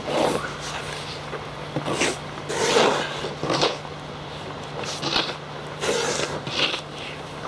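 Wooden snow shovel biting into and scraping through packed snow, a series of uneven crunching strokes about one a second. A faint steady low hum runs underneath.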